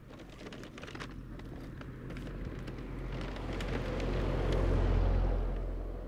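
A car passing along the road: its engine and tyre noise builds steadily, peaks about five seconds in, then fades as it drives away.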